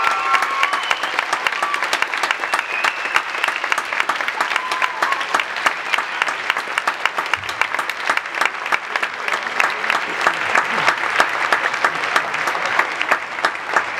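Audience applauding, many hands clapping at once; the last held notes of the band's music die away in the first second.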